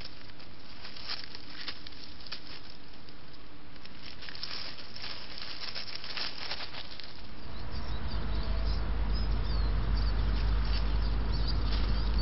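A small mustelid moving over dry leaf litter and twigs, making irregular rustles and crackles over a steady camera hiss. After about seven seconds this gives way to a low wind rumble on the microphone with faint bird chirps.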